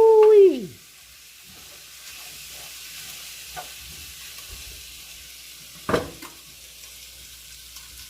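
Food sizzling quietly in a frying pan, with a sharp utensil clink against the pan about six seconds in. It opens with a loud steady held tone that drops away within the first second.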